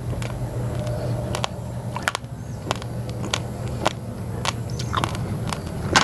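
Uncooked basmati and glutinous rice grains being chewed and crunched between the teeth, with sharp crunches about every half second, over a steady low hum.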